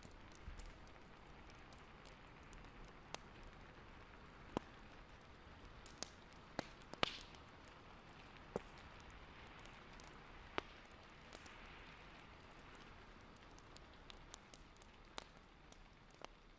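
Faint steady rain on a rooftop, with scattered louder drips and ticks every second or so over the soft hiss.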